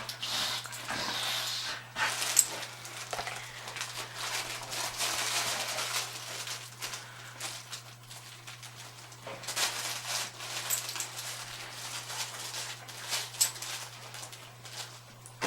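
Dogs moving about and playing with toys: rustling and scattered small knocks, over a steady low hum.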